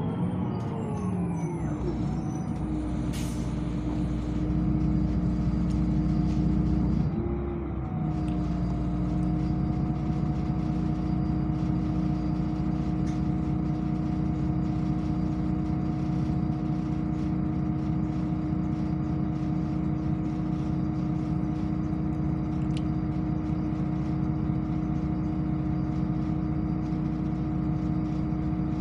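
Articulated city bus heard from inside the passenger cabin, coming to a standstill: a drivetrain whine falls away in the first second, then the bus stands with a steady low engine and auxiliary hum carrying a constant tone. A brief click comes about three seconds in, and the hum shifts briefly around seven seconds.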